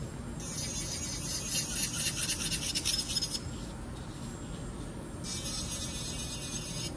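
Nail file rubbing back and forth on an acrylic nail in quick, even strokes, strongest from about half a second to three and a half seconds in, then fainter again near the end.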